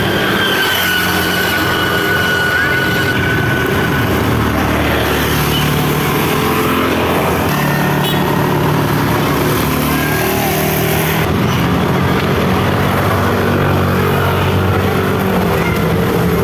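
Street traffic of small motorcycles and scooters running and riding past, with their engine hum continuous. A thin high whine sounds over it during the first few seconds.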